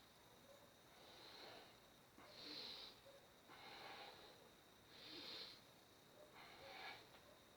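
A person breathing audibly in a steady, paced rhythm: five faint, hissy breaths, each under a second long, about one every second and a half.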